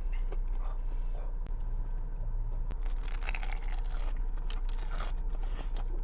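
Close-up crunching and chewing of a fried shrimp sushi hand roll: many crisp crunches from the fried coating, thickest in the second half, over a steady low hum.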